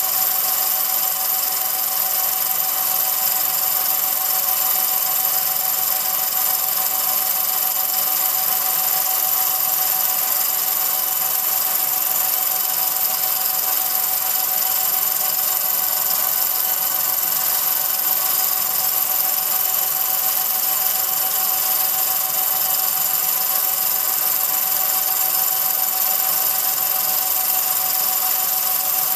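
Running 8mm film projector: a steady mechanical whirr with a constant high whine over hiss, unchanging throughout, the only sound on an otherwise silent home movie.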